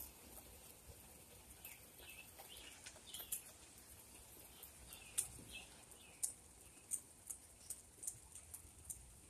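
Light rain: a faint steady patter with irregular sharp drip ticks, one to two a second, and no thunder.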